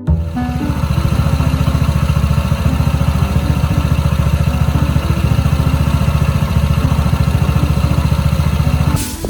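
Honda PCX scooter's single-cylinder engine idling with a steady rapid pulse and some clatter, the drive system carrying the abnormal noise that is traced to a worn driven face bearing. It cuts off suddenly near the end.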